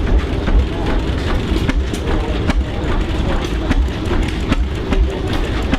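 Antique heavy machinery running: a throbbing low rumble with frequent sharp clanks and knocks, about two a second at uneven spacing.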